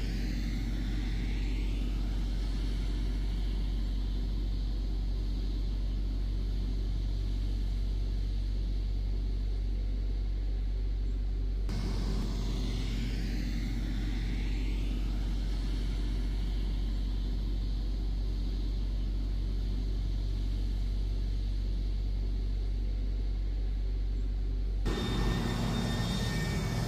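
Steady low rumble of construction machinery engines. About two seconds before the end it changes suddenly to the closer sound of a SANY motor grader's diesel engine running.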